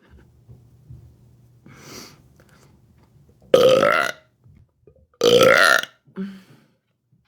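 A woman burping loudly twice, each long belch lasting about two-thirds of a second, the second coming about a second and a half after the first.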